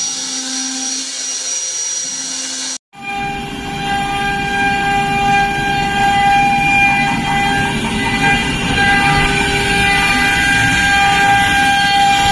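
CNC router spindle running with a steady whine of several held tones. The sound cuts out for a moment about three seconds in, then comes back louder and higher.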